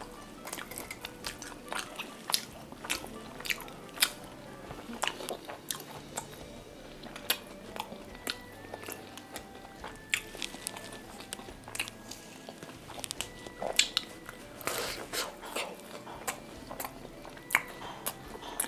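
Close-up biting and chewing of a giant deep-fried samosa's crispy pastry shell: many sharp crunches at irregular intervals, with softer chewing between them.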